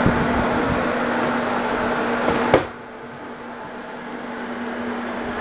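Steady whir of carpet-drying fans with a constant low hum. About halfway through there is a sharp knock of a door shutting, and the fan noise suddenly drops to a much quieter, muffled level.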